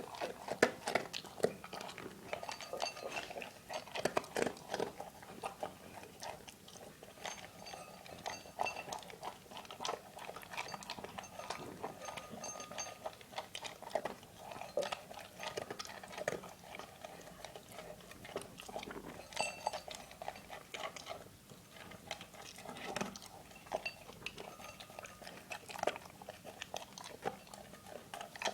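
A dog eating: irregular chewing and clicking throughout, with faint ringing now and then.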